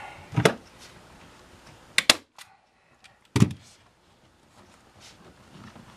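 A staple gun firing staples through seat vinyl into the seat base: a single shot, then a quick double shot about two seconds in, then another shot about a second later.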